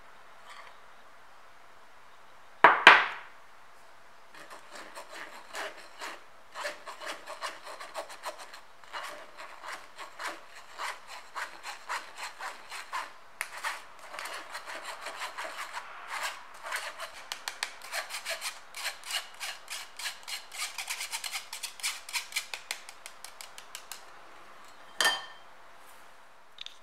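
A plastic mesh sieve is shaken over a glass bowl to sift flour. It makes a fast, uneven run of short scratchy strokes, several a second, for about twenty seconds. There is a sharp knock shortly before the sifting starts and another just after it ends.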